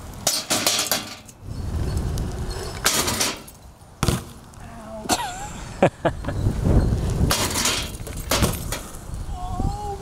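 A BMX bike riding a steel street ramp and rail: several sharp clanks and bangs as the bike strikes the metal, with a steady low rumble between them.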